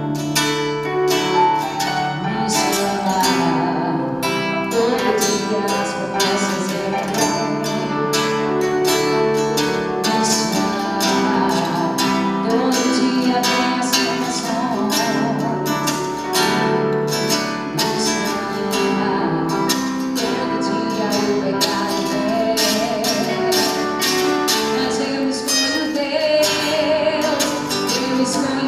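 Live band playing a song: guitar over a steady drum beat, with singing.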